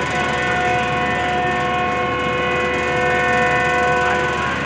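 Train horn sounding one long, steady blast of several tones together; it stops near the end.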